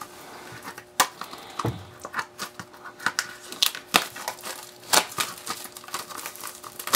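Plastic shrink-wrap being torn and peeled off a small cardboard software box, crinkling with sharp crackles every second or so.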